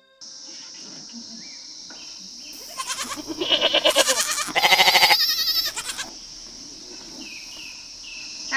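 An animal bleating: two loud wavering bleats, one after the other, between about three and six seconds in, over a steady high-pitched drone.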